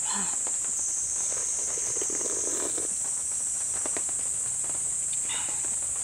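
A steady, high-pitched chorus of night insects, with soft eating sounds over it: sipping broth from a spoon and slurping noodles.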